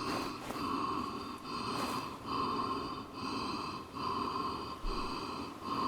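A strange breathing sound from the tree: short, hissy pulses repeating a bit more than once a second, like quick rhythmic breaths.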